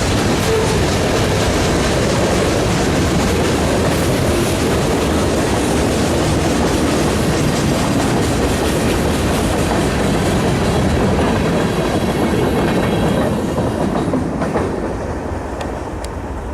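A train running past, a loud steady rumble and rattle of rail cars that fades away over the last few seconds.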